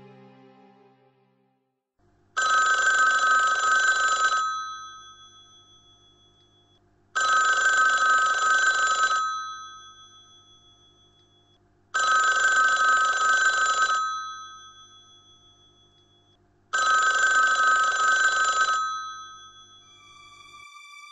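Bell of an old black rotary-dial desk telephone ringing four times, each ring about two seconds long and about five seconds apart, the bell tones dying away after each ring.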